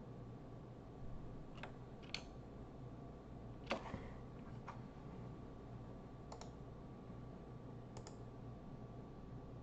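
About six separate clicks of a computer keyboard and mouse, spaced a second or more apart, the loudest a little under four seconds in, over a faint steady hum.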